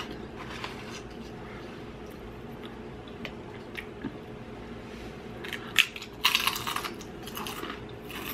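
A person eating close to the microphone: a few soft clicks at first, then a louder stretch of chewing and mouth noises for about a second and a half, about six seconds in.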